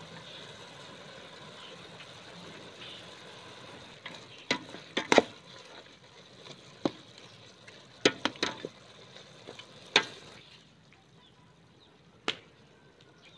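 Steel ladle stirring chicken and tomatoes in a steel cooking pot, clanking sharply against the pot a dozen or so times between about four and ten seconds in, with one more clank near the end. The first four seconds carry a steady sizzle of the cooking pot.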